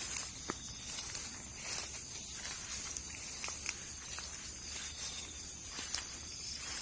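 Steady high-pitched insect chorus with a hiss, over which scattered light clicks and rustles of footsteps are heard.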